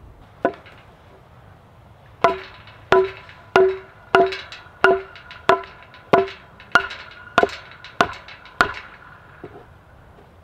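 A single hammer blow, then a steady run of about eleven blows, roughly one and a half a second, each with a short ringing tone. The later blows are softer.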